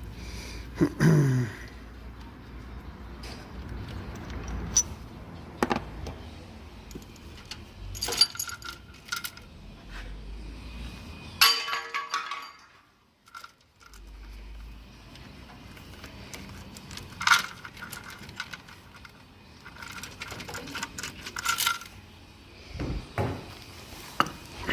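Steel bolts and hand tools clinking and clattering as the camshaft sprocket bolts are unscrewed and lifted out of an MG3 engine's timing end. There are scattered sharp clicks and a few ringing metal clinks, with a brief hush about halfway through.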